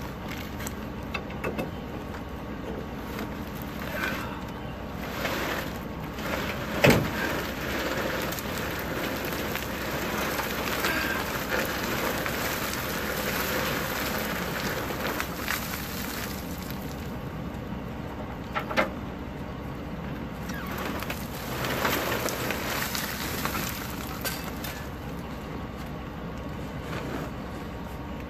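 Wood mulch sliding and spilling off the back of a pickup bed as a hand-cranked truck bed unloader pulls the load out, a steady crackly rustle. A sharp knock about seven seconds in and a smaller one near nineteen seconds.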